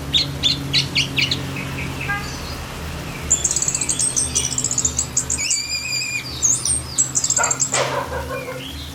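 Orange-headed thrush singing: quick runs of high chirps, then rapid high trills and whistled notes, with a shorter, lower call near the end over a steady low hum.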